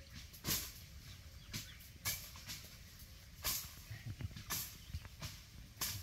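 Outdoor ambience of short, dry rustles, one every second or so, over a low steady rumble.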